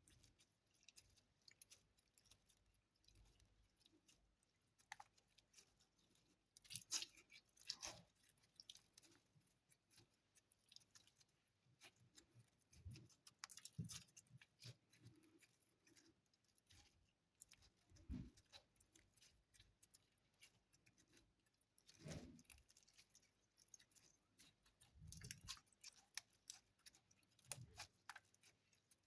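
Slime being squished and poked by hand: faint, irregular sticky crackles and pops, with a few louder clusters of clicks now and then.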